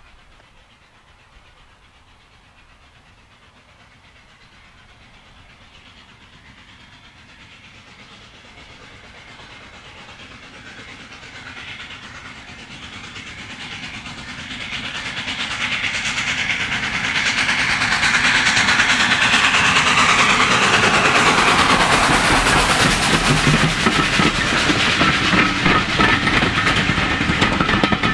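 Steam-hauled train approaching, growing steadily louder over about fifteen seconds, then passing close by at full volume with a rapid run of beats and clatter.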